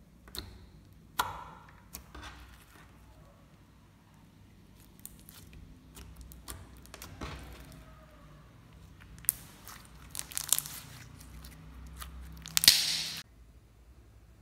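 Hands squeezing, poking and stretching clear slime: irregular sticky clicks, pops and crackling. The loudest is a burst of crackling near the end, which cuts off suddenly.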